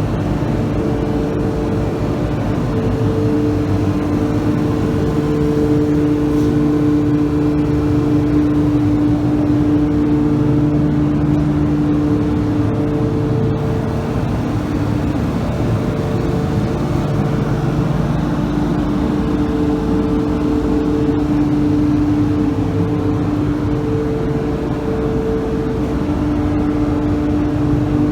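A machine running steadily throughout, with a constant droning hum that swells a little and eases off, and no sharp knocks or stops.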